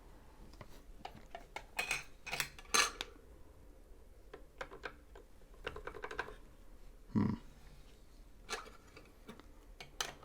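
Scattered light clicks, taps and knocks at uneven intervals, with one duller thump a little past the middle: hands handling the sewing machine and its parts, not the machine running.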